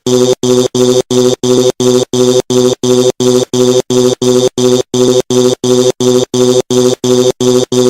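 Loud smoke alarm sounding continuously, a rapid train of even beeps at about three and a half a second with no pause.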